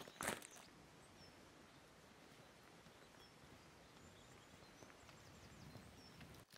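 Near silence: faint open-air background with a few faint, high bird chirps. Just after the start comes one crunching footstep on gravel.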